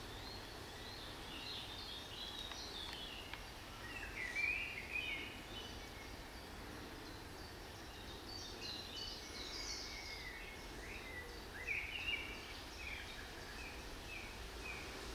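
Wild birds singing: varied short chirps and phrases throughout, and near the end a run of evenly repeated notes, over a steady outdoor background hiss.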